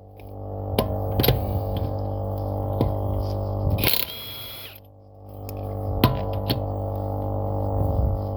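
Portable air compressor running steadily to inflate a tire, with a steady hum; it drops out about halfway, then builds back up. Scattered sharp clicks and a short hiss of air are heard over it.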